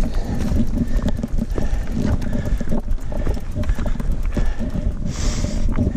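Irregular footsteps and knocks on rough, rocky trail as a mountain bike is walked rather than ridden, over a steady low rumble, with a short hissing scrape about five seconds in.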